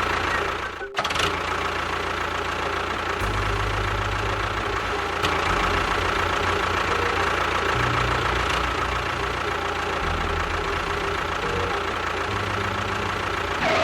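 A small motor running steadily, with a brief break about a second in.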